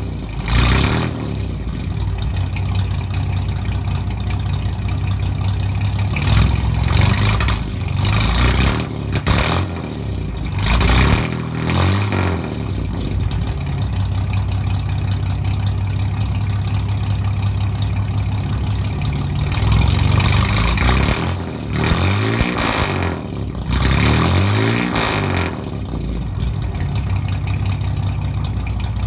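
1956 Chevrolet 235 cubic-inch inline-six running through straight-piped dual exhaust with split headers and no mufflers. It idles steadily, with the throttle blipped several times into short revs that rise and fall back to idle.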